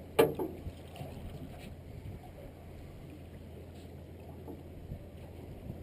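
A sharp knock about a quarter second in, with a short ringing tail, then water sloshing against the side of a small boat, with a low steady hum underneath.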